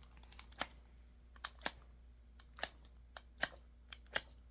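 A knife's spine scraped down a ferrocerium rod in short, sharp strokes, about six of them, a second or less apart.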